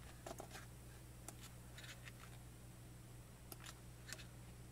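Faint rustles and short scrapes of glossy photo-book pages being handled and turned, a handful of brief sounds over a low steady hum.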